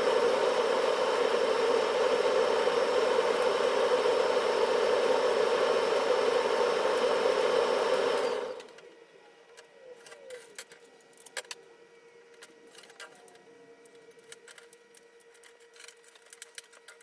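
Air conditioning unit running with a loud, steady hum, which the owner says could be mistaken for a vacuum cleaner; it cuts off suddenly about halfway through. Afterwards only faint scattered clicks remain.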